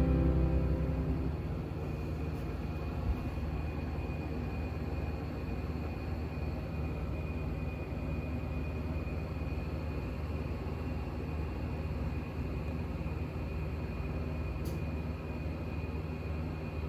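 Steady low mechanical hum with a thin, high steady whine above it, as from a running fan or motor. The tail of background music fades out in the first second or so.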